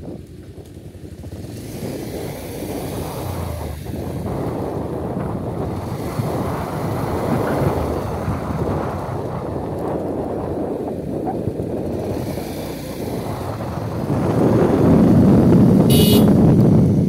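Steady running-vehicle noise, a dense low rumble that gets louder about three seconds before the end. A short high-pitched toot comes near the end.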